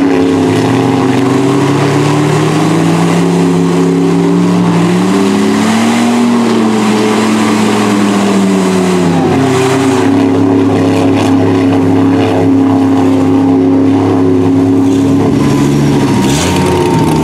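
Mud truck on tractor tyres grinding through deep mud under heavy throttle, its engine straining steadily. The engine's pitch climbs about five seconds in and sinks back a few seconds later, over the hiss and slop of churned mud.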